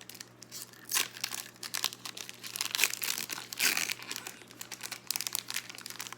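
Foil wrapper of a Pokémon Unified Minds booster pack crinkling and tearing as it is opened by hand, in a run of sharp crackles, loudest about a second in and again around the middle.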